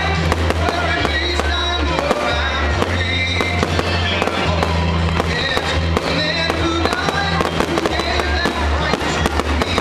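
Fireworks display: a dense, continuous run of bangs and crackling shell bursts, over music with a steady bass line.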